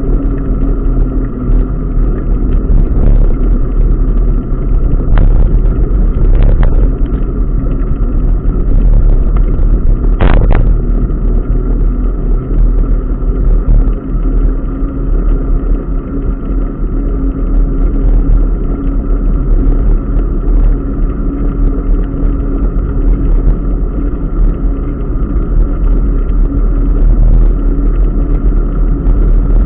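Wind buffeting the microphone of a bicycle-mounted camera as the bike rides along a wet paved path. It makes a loud, steady low rumble with a faint steady hum underneath. A few short knocks break in during the first ten or so seconds.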